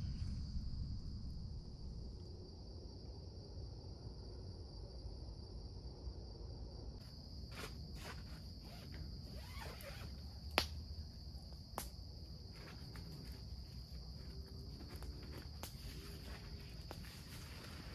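Steady high-pitched chorus of night insects. Scattered sharp clicks and knocks join in from about halfway, the loudest a little past ten seconds in.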